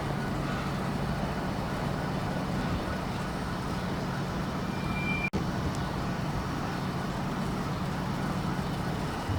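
A steady low engine hum over an even rumble of vehicle noise. The sound cuts out for an instant a little past halfway, and the hum stops just before the end.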